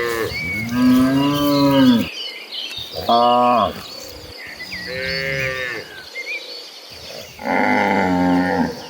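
Cattle mooing: four drawn-out moos, each about a second or more long and of differing pitch, the last the loudest. Faint chirping goes on behind them.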